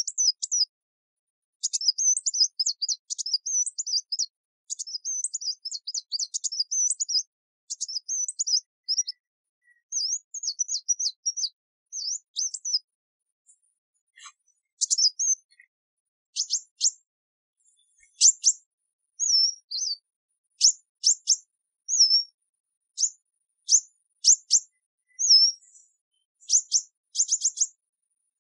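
Kingfisher calling in high-pitched chirps: a long run of rapid, chattering chirps for the first half, then a short pause and separate sharp calls about once a second, with quick clusters of calls near the end.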